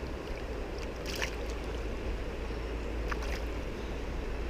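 Shallow river water flowing and lapping, with a steady low rumble and two brief splashes, about a second in and again around three seconds in.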